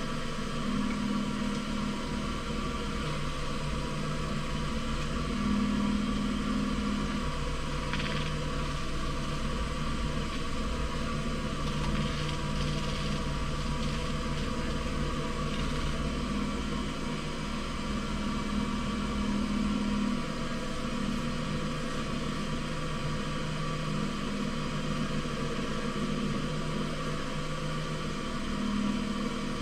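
Wood lathe motor running steadily at low speed while a turned piece is waxed and polished, its hum shifting slightly in pitch every few seconds.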